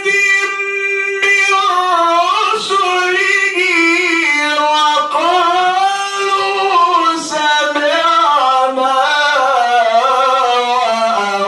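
A man's voice in melodic Quran recitation, with long held notes that slide and waver in pitch, broken only by short breaths.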